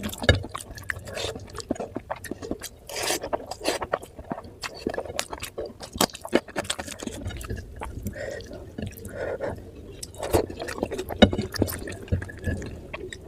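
Close-up wet eating sounds of oily mutton curry: chewing, squelching and slurping of the gravy, with many irregular sharp clicks.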